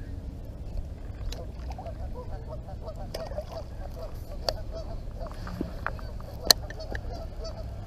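A flock of birds calling over and over, many short overlapping calls. A few sharp knocks come through, the loudest about six and a half seconds in.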